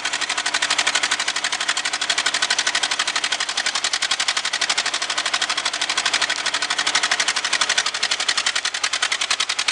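Mauldin 1500 asphalt paver's engine running steadily with a rapid, even exhaust beat as the machine creeps forward under its own power.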